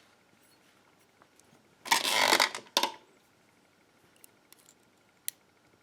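Small metal lock parts rattling and scraping for about half a second as a pin-tumbler lock cylinder is taken apart, then a sharp metallic click and a few light ticks.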